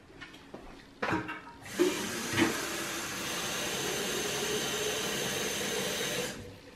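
Kitchen tap running into a watering can, a steady rush of water filling it, with a faint tone that rises slightly as the can fills; the flow starts after a few knocks and cuts off sharply near the end.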